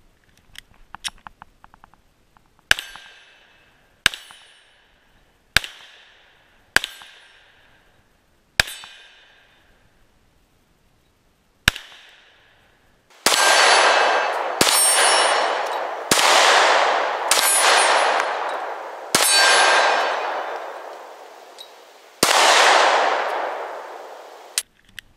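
Light clicks of a magazine being seated and the slide released, then about a dozen shots from a Glock 43 9mm pistol, one every one to three seconds. Each crack is followed by the ringing clang of the steel target plate being hit. The later shots have much longer, fuller ringing tails.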